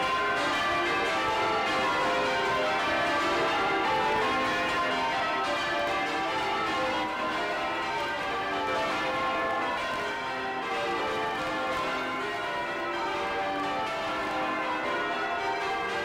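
Change ringing on a 1932 Taylor ring of church bells, heard close up inside the bell chamber: full-circle bells striking one after another in a rapid, continuous stream of overlapping clangs and hums.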